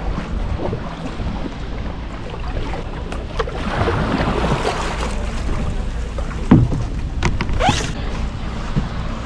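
Kayak on the sea: water splashing and sloshing around the hull, with a few sharp splashes near the end, over a steady rumble of wind on the microphone.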